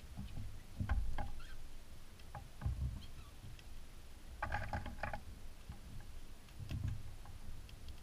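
Cockatiels pecking at a seed dish close to the microphone: dull knocks and short sharp clicks of beaks picking and cracking seed, with a quick run of clicks about four and a half seconds in.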